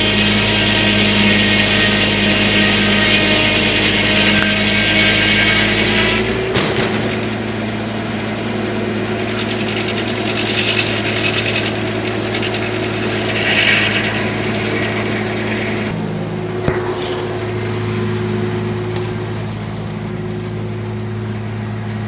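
Homemade circular sawmill's blade cutting through a log, with the tractor-driven mill running under it; the cut ends sharply about six seconds in. The mill then keeps running with a steady hum, broken by a couple of short rasps and a single click.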